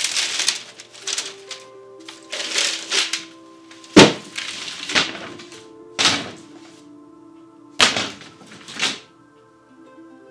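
Dry bamboo canes clattering against each other and knocking on a wooden floor as they are pulled from a stack and laid down: a rattling cluster near the start, then sharp knocks about every second or two, the loudest about four seconds in. Soft background music plays underneath.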